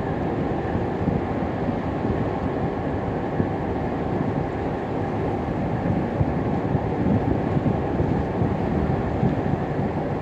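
Steady low rumble of boat engines over water, with some wind on the microphone; it keeps an even level with no distinct events.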